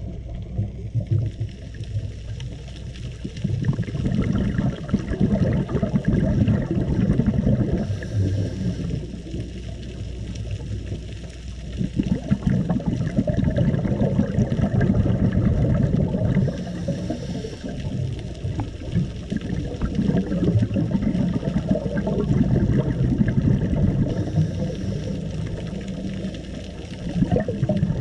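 Muffled underwater rush and rumble of moving water, heard through a camera's waterproof housing, swelling and easing in surges. A brief faint hiss comes about every eight seconds.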